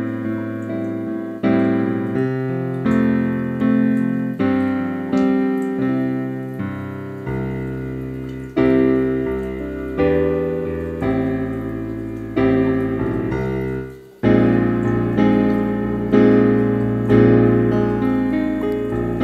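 Background piano music: a cheerful solo piano piece, with chords struck about once a second. It breaks off briefly about fourteen seconds in and comes back fuller.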